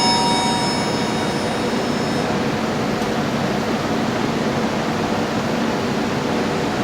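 Passenger train running through a station: a steady rumble of wheels on rail. A set of high, steady ringing tones fades out about two seconds in.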